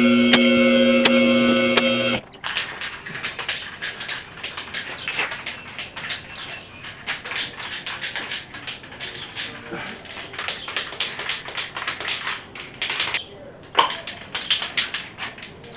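Background music that cuts off about two seconds in, then a spray paint can being shaken: rapid, irregular clicking of the mixing ball inside the can, mixing the paint before spraying. The rattle breaks off briefly near the end.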